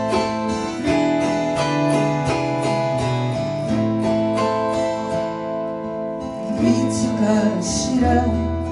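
Acoustic guitar and autoharp playing an instrumental interlude of a slow folk ballad, with steady strummed chords. In the last couple of seconds come brighter sweeps across the strings.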